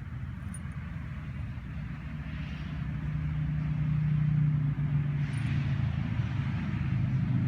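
A motor engine running with a steady low hum that grows louder partway through, its pitch dropping slightly near the end.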